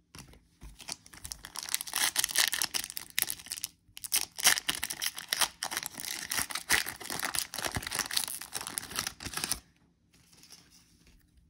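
Foil trading-card pack wrapper being torn open and crinkled: a crackly rustle with a short break about four seconds in, stopping shortly before the end.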